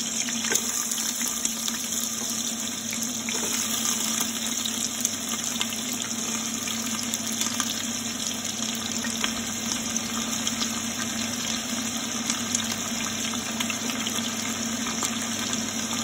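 Diced onion and celery sizzling in hot oil in a large stainless-steel pot: a steady hiss with frequent small crackles, over a low steady hum.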